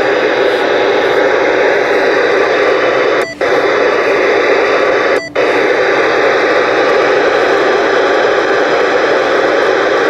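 President Lincoln II+ CB radio receiving on channel 19, its speaker giving loud, steady static hiss that cuts out briefly twice.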